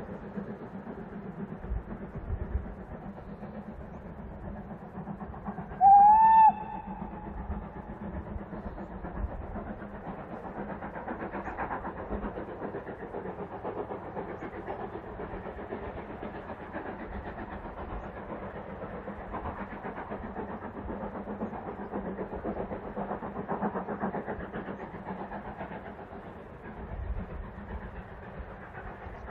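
Steam locomotive working a train along the line, a steady far-off running sound, with one short whistle blast about six seconds in.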